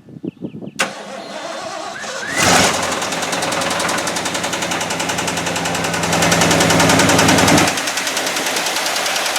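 1989 Ford F250's 5.8-litre V8 cranking and catching about two seconds in, then running with a rapid, steady knock. It runs louder for a couple of seconds near the end before settling back. The knock is loud and, to the owner, doesn't sound healthy.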